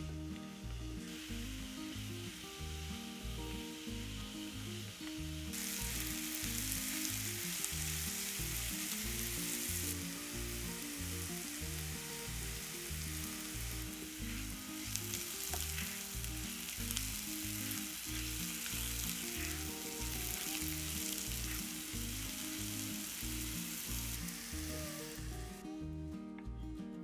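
Food sizzling as it fries in a pan, over background music with a steady beat. The sizzle grows louder about five seconds in and dies away near the end.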